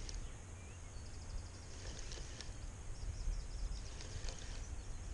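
Quiet lakeside ambience: a low steady rumble with faint bird chirps and scattered small clicks.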